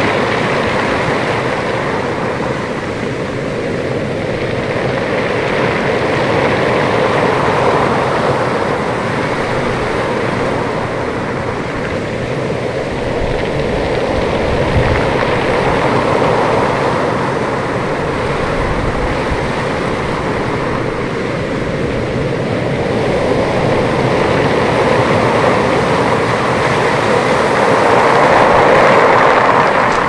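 Storm surf breaking and washing up a pebble beach: a steady rushing that swells and eases every several seconds, loudest near the end.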